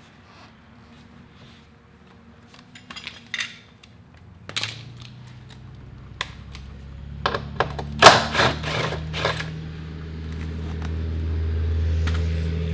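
Light metal clicks and clinks of hand tools and fasteners, densest about eight to nine seconds in. A low steady hum comes up about five seconds in and grows louder near the end.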